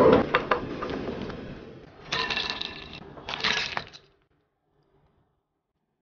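Food pieces dropped into a pan of water with a splash, fading over about two seconds. Then two short bursts of ice cubes clinking and sloshing in a glass bowl of ice water.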